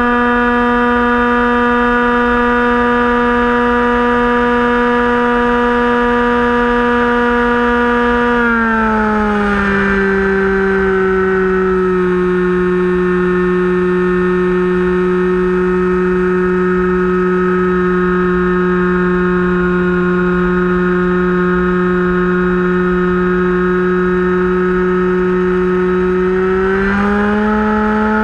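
Electric motor and propeller of a Finwing Penguin RC plane, heard from its onboard camera: a steady whine that slides down in pitch about eight seconds in as the motor slows, holds there, then slides back up near the end.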